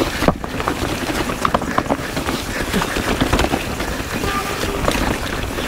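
Mountain bike rolling fast down a rough, technical trail: a steady rush of tyre noise with the bike rattling and clattering, many sharp knocks as it hits bumps.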